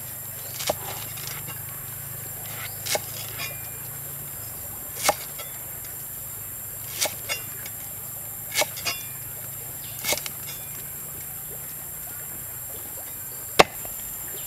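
Knife slicing through a lemongrass stalk held in the hand, with about ten crisp cuts at irregular intervals and the sharpest one near the end. A steady high hiss runs underneath.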